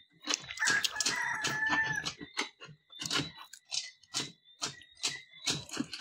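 Water splashing as cupped hands throw water onto a face, a series of short splashes about twice a second. About half a second in, a rooster crows once, lasting about a second and a half.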